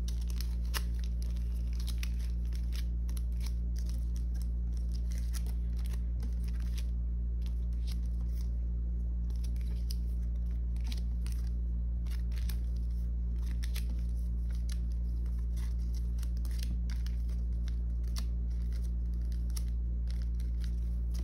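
Photocards in clear plastic sleeves being picked up, shuffled and set down on a plastic binder page: light clicks and crinkly plastic rustles over a steady low hum.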